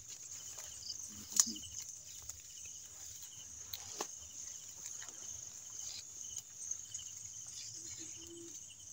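Night chorus of crickets and other insects, a steady high-pitched chirring with a faster pulsing trill beneath it. A few sharp clicks and rustles from brush being handled, the loudest about a second and a half in.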